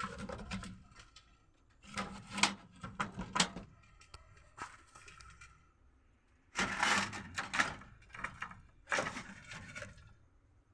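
Rustling, crackling and knocking from hands handling a pigeon nest, in three bursts of a second or so each.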